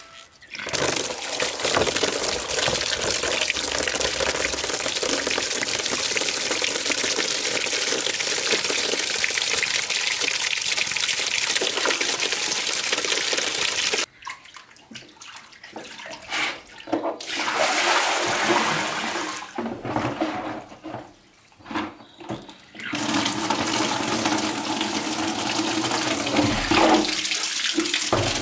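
Water from a wall tap pouring steadily into a plastic basin, cutting off abruptly about fourteen seconds in. Then irregular sloshing and splashing as a plucked bird is washed by hand in the water, and in the last few seconds steady pouring again from the running tap as the basin is tipped out.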